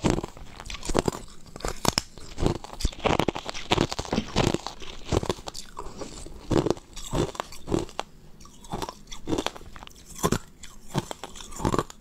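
Ice being bitten and chewed close to the microphone: a rapid, irregular run of crisp crunches.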